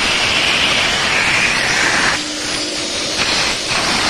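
VacuFlo 560 central vacuum running with its hose in use: a loud, steady rush of suction. The rush dips and changes twice, for about a second starting two seconds in and briefly again near the end.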